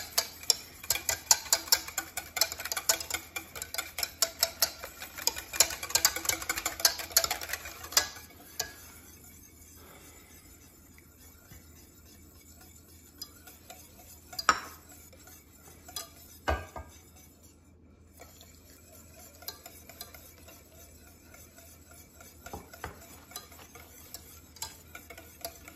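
Wire whisk beating egg yolks and oil into mayonnaise by hand in a stainless steel pot. It clatters rapidly against the sides for about eight seconds, then goes on as softer whisking with only the odd clink.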